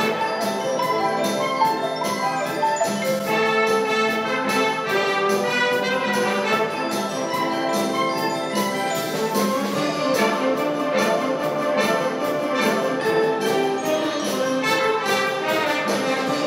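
Concert wind band playing an arrangement of 1960s pop tunes: brass, clarinets and flutes together over a steady beat.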